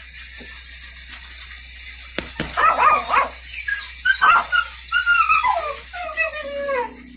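A dog whining and yelping repeatedly from about two seconds in, the later calls sliding down in pitch.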